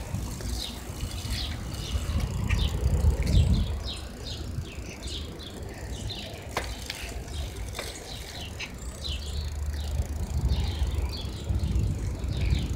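Small songbirds chirping repeatedly in quick short notes, over a low rumble on the handheld phone's microphone that swells twice.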